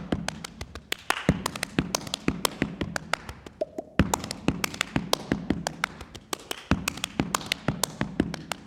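Solo body percussion: rapid claps and slaps of the hands on the body in a steady rhythmic groove, with a heavier hit about every second and a third.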